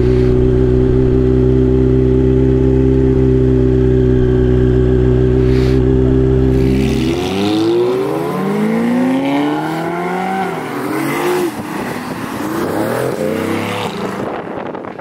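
Kawasaki Z900 inline-four running through a Mivv Suono Black slip-on exhaust. It holds a steady note for about seven seconds, then accelerates through several gears, its pitch climbing and dropping back with each upshift.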